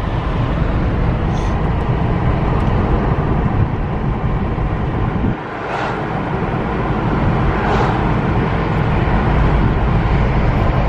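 Steady road and engine noise inside a moving car, a heavy low rumble that dips briefly about five seconds in.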